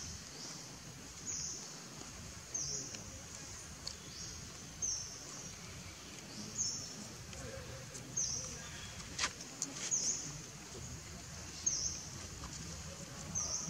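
A bird calling: a short, high, falling chirp repeated about every second and a half over steady outdoor background noise, with one sharp click about nine seconds in.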